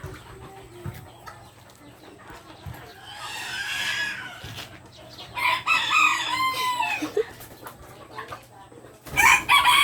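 Bantam roosters crowing: one crow about three seconds in, a longer crow with a falling end a couple of seconds later, and another loud call starting near the end.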